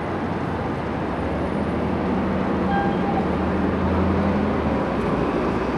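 Steady outdoor noise with a low vehicle engine hum that swells from about a second and a half in and stops about a second before the end.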